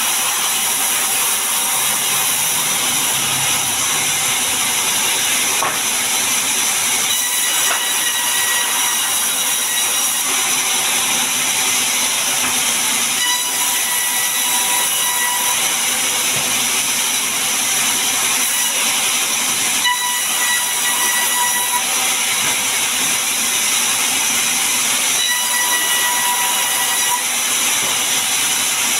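Sawmill band saw running and ripping a mahogany log into long boards: a steady, dense rush of the blade through the wood, with a thin high whine that comes and goes every few seconds.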